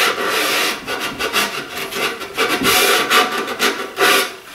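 Hand sanding with a foam sanding block rubbed back and forth along a plywood edge: uneven, quick scratchy strokes, rolling the edge into a slight round-over.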